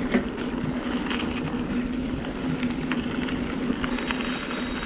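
Mountain bike rolling along a dirt singletrack: tyre noise on dirt and wind on the microphone, with a steady buzz and scattered clicks and rattles from the bike and trail.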